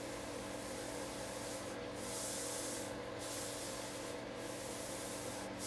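Stylus rubbing across a tablet screen as it draws long strokes, a scratchy hiss broken three or four times by short pauses where the tip lifts.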